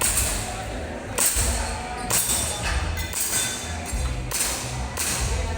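Airsoft gun shots: sharp cracks about once a second at uneven spacing, heard over background music.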